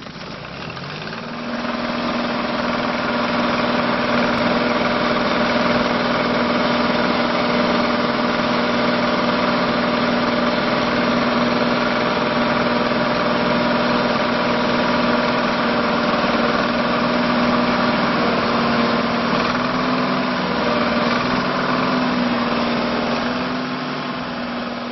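2013 Ditch Witch RT45 ride-on trencher's engine idling steadily, building up over the first couple of seconds and easing off slightly near the end.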